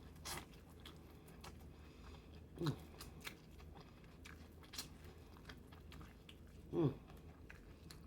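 Close-miked eating sounds: chewing, biting and lip-smacks as scattered small clicks, with two short vocal sounds falling in pitch, about a third of the way in and again near the end.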